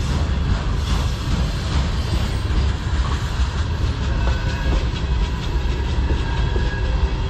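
A freight train's tank cars and hopper cars rolling past: a steady rumble of steel wheels on the rails, with scattered clacks as the wheels cross rail joints.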